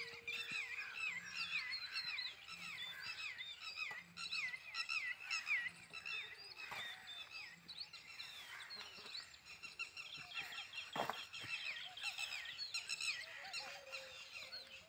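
Many small birds chirping continuously in quick, repeated high calls, with a few soft scrapes and one louder knock about two thirds of the way through as dogs dig in loose dirt.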